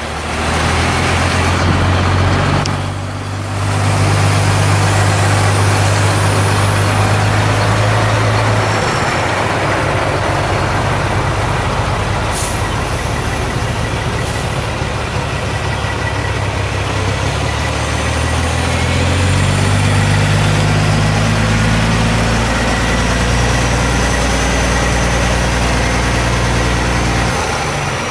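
Caterpillar C15 inline-six diesel engine of a 2005 Peterbilt 379 semi truck running steadily. Its note steps down a little about nine seconds in and rises again about nineteen seconds in.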